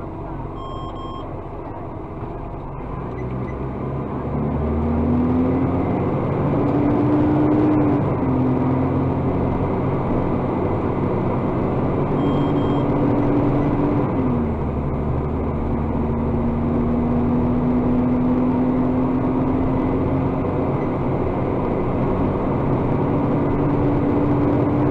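Iveco Acco garbage truck's diesel engine running with a whine that glides up and down in pitch, the revs rising about four seconds in and dropping back about fourteen seconds in, as the truck's hydraulics for the Bucher bin-lifting arm are worked. Two short electronic beeps, about a second in and again about twelve seconds in.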